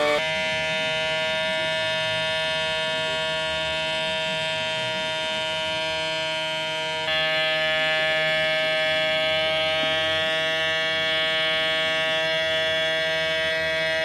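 Small DC motors of a homemade air conditioner's mini diaphragm pump and blower fan, running with a steady electric whine made of several tones. The whine gets a step louder about seven seconds in.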